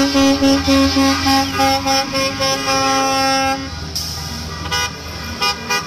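Bus sound effect: a horn sounding in a quick run of short beeps for about three and a half seconds over a low engine rumble. Then the engine runs on alone, with a few short hisses.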